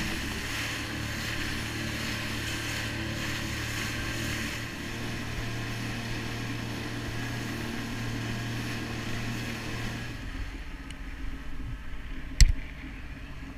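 Jet ski engine running steadily under way, with water and wind rushing past. About ten seconds in the engine note drops away to a low rumble as the ski slows. A single sharp knock comes near the end.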